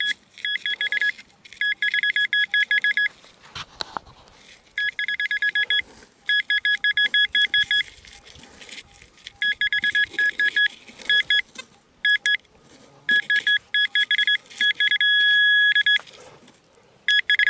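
Handheld metal-detector pinpointer probing a dig hole, giving bursts of rapid high-pitched beeps that signal metal near its tip. Between about 15 and 16 s the beeps run together into a steady tone for about a second, as when the tip sits right on the target.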